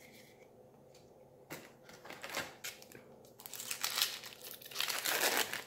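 Foil wrapper of a Modern Horizons booster pack being torn open and crinkled by hand: a few separate sharp crackles, then continuous crinkling over the last two seconds.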